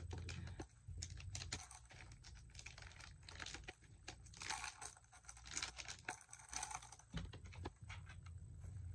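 A white packaging pouch being handled and torn open by hand: a run of small crinkles and clicks, with two longer rustling, tearing stretches a little past halfway. A steady low hum lies underneath.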